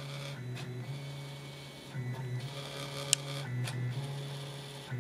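Stepper motors of a HyperCube 3D printer converted to a pen plotter, moving the pen back and forth as it hatches a filled area: a steady motor hum whose pitch changes with each new move, with one sharp click about three seconds in.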